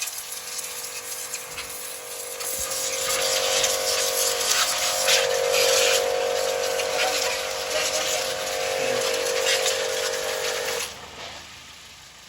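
A small electric motor running steadily with a high hiss and a hum, then switching off abruptly near the end.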